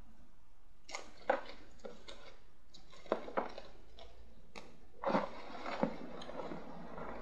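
Cards and a paper cut-out being handled on a tabletop: a handful of light taps and clicks spread through, with a short paper rustle about five seconds in.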